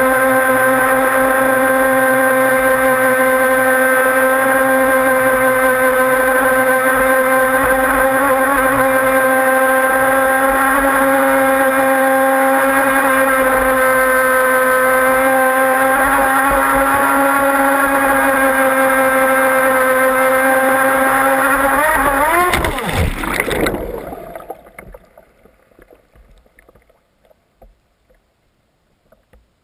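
Hot rod race boat's engine running at a steady high speed under heavy spray noise. About 22 seconds in, the engine note warbles and collapses within a couple of seconds to faint sloshing water as the boat slam-dunks, stuffing into the water.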